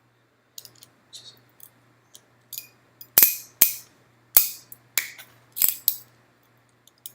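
Crimping tool's cutting blade trimming the ends of the cat5 cable's wires. A few light ticks come first, then about six sharp snips between three and six seconds in.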